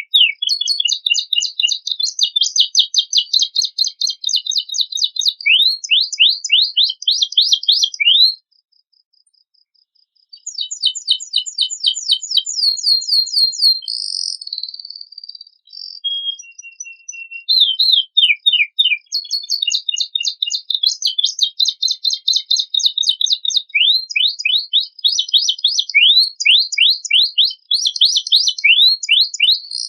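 Canary singing a long song of rapid trills and fast repeated sweeping notes, high-pitched and shrill. It stops for about two seconds a third of the way in, then goes on.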